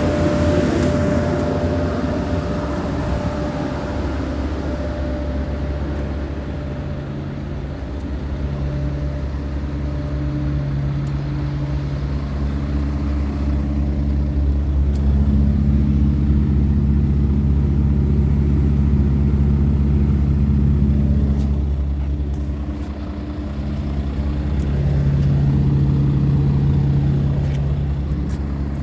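Diesel engine running steadily with a deep rumble. It grows louder for several seconds about halfway through, dips, then swells again near the end.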